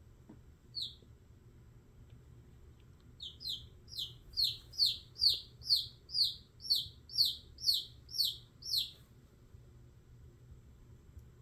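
A chicken chick peeping in distress while held in a king snake's constricting coils: one high peep, then after a pause a rapid run of about a dozen loud peeps, two to three a second, each falling in pitch, before it stops.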